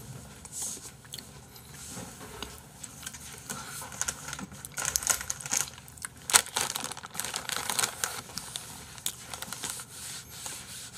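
Thin plastic bag rustling and crinkling in irregular crackles as it is handled and crumpled in the hands. The loudest crackle comes about six seconds in.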